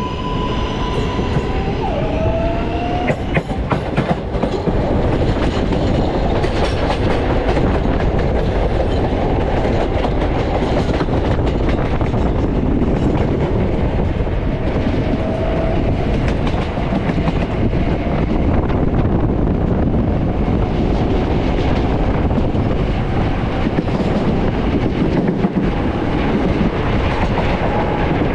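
New York City subway L train running, a steady rumble of wheels on rails with clacks over the rail joints in the first several seconds and a brief rising whine about two seconds in.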